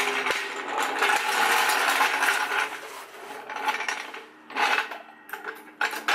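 Metal hand tools and parts clattering and jangling for about three seconds, then a string of separate metallic clicks and knocks.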